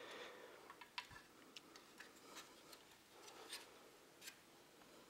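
Near silence with a scattering of faint, irregular light clicks from the plastic meter housing and circuit board being handled.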